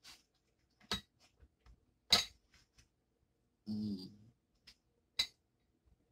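Sharp clinks and taps of a small glass bowl and a platter as jalapeño slices are picked out by hand and laid on tacos, the loudest about two seconds in. A short low hum from the eater near four seconds.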